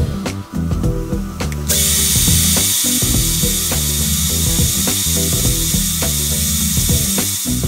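Cordless drill running as it bores into a thin plastic lid. The dense high whine starts about two seconds in and holds steady, over background music.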